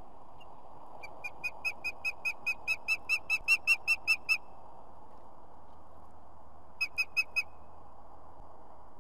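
Osprey calling: a fast run of about fifteen sharp whistled notes, about five a second and growing louder, then a short burst of four more notes a few seconds later.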